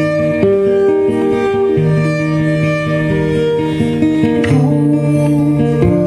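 Live folk music: guitar with long held notes, changing pitch every second or so.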